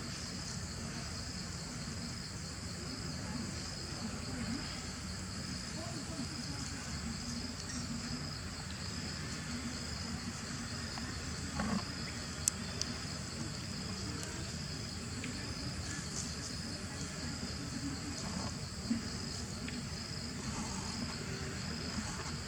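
Steady, high-pitched chorus of insects such as crickets or cicadas, over a low rumble, with a few brief clicks about halfway through and again near the end.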